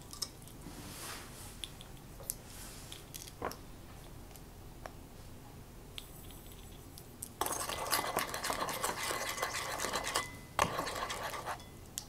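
Plastic measuring spoons scooping and tipping dry yeast and sugar into a bowl of water: a few light clicks, then, in the second half, two gritty scraping stretches split by a sharp click.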